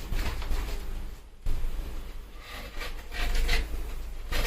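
Old, thick sealant being scraped off a boat window frame: irregular scratchy scraping strokes, pausing briefly about a second in, then a quicker run of strokes in the second half, over a steady low rumble.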